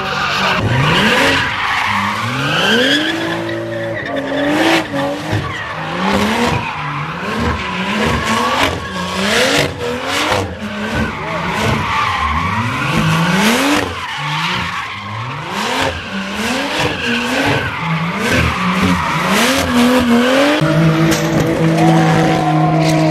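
Modified BMW drift car sliding around a drift pad: its engine revs up again and again, about once a second, over tyres squealing and skidding. Near the end the engine holds a steady high rev.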